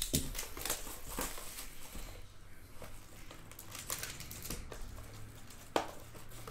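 Cardboard trading-card box being opened by hand: plastic wrap crinkling, and the lid and inner box scraping and tapping, with one sharper knock near the end.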